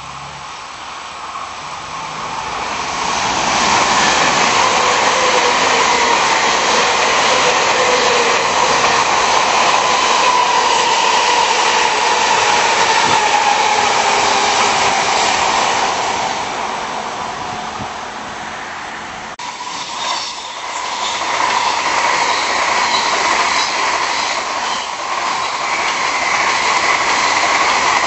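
Tokaido Shinkansen bullet trains passing at speed on an elevated track. One train's rushing noise builds over the first few seconds and holds loud with a faint whine that slowly falls in pitch, then fades. A second train's rush rises again about twenty seconds in.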